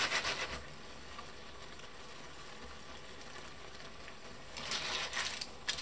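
Clams in tomato sauce simmering in a frying pan, a faint steady sizzle, with a scraping rattle of shells being stirred at the start and again about four and a half seconds in.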